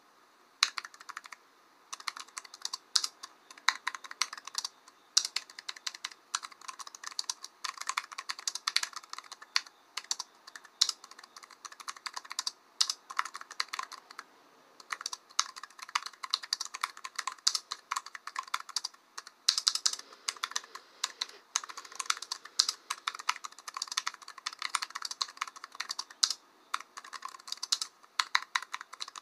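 Typing on a computer keyboard: a fast, irregular run of key clicks with a few brief pauses.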